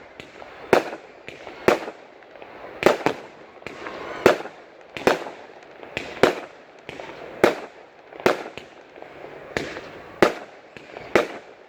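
Fireworks going off: a dozen or so sharp bangs about a second apart, with crackling between them.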